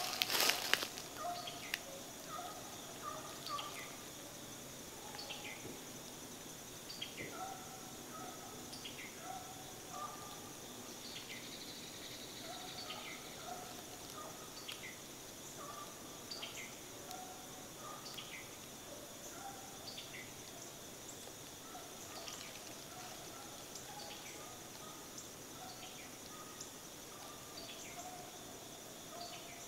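Woodland ambience: a steady high-pitched drone of insects, with short bird calls and chirps repeating every second or so. A sharp knock or two right at the start.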